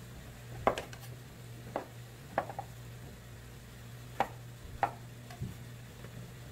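Chef's knife slicing king oyster mushrooms on a wooden cutting board, the blade knocking on the board about six times at uneven intervals over a steady low hum.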